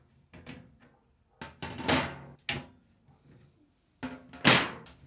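Lian Li A3 PC case panels being handled: a series of knocks and scrapes, with a longer scrape about a second and a half in and the loudest one near the end.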